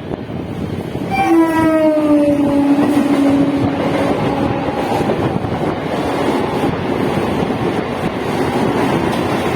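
ICF electric multiple unit (EMU) train sounding its horn as it passes, the horn's pitch sliding down over about three seconds, with the steady rumble of the train running by underneath.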